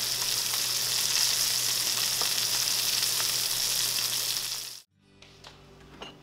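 Ribbon fish (galchi) pieces frying in oil in a pan: a steady sizzle with scattered small pops. It cuts off suddenly about five seconds in, leaving quiet room tone with a light click.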